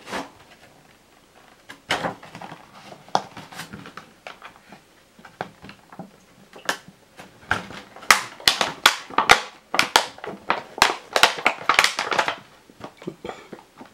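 Plastic packaging crinkling and clicking as a promo card is worked free of it. Scattered clicks at first, then a dense run of quick crackles through the second half.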